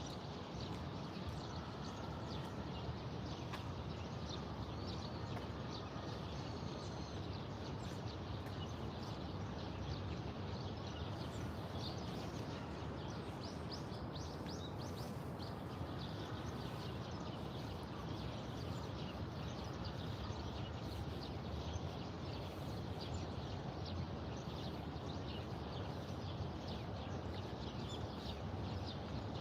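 Small birds chirping over a steady low background rumble, with a quick run of chirps about halfway through.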